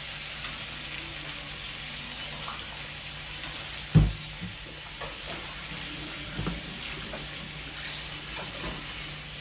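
Cooked beans frying in oil in an enamel pot, a steady sizzle, with a spatula stirring them and knocking against the pot, loudest once about four seconds in and again more softly about two seconds later.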